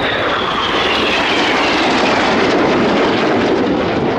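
Loud jet noise of a Red Arrows BAE Hawk T1 going past, its Rolls-Royce Adour turbofan whine falling steadily in pitch as it passes.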